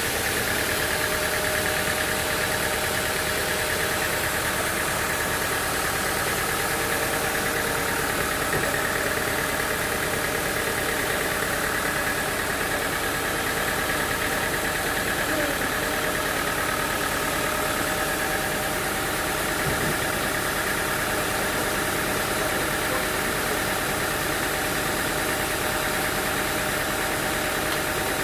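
Sawmill machinery running steadily, an engine-driven mill with a constant hum and whine that does not change.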